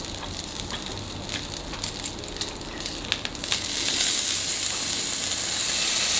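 Pork belly slices sizzling on an electric grill plate, with metal tongs clicking against the plate. About three and a half seconds in, the sizzle swells into a loud steady hiss as a slice is turned onto the hot surface.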